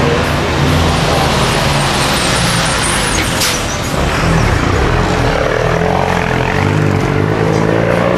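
Road traffic close by: vehicle engines running as a bus passes near, with an engine revving up near the end.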